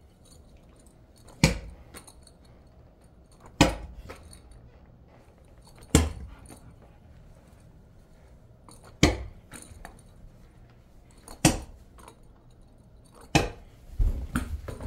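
A knobbly rubber goblin ball toy hitting a hard floor, a sharp bounce every two to three seconds, each trailed by a few smaller bounces. The hits come quicker near the end.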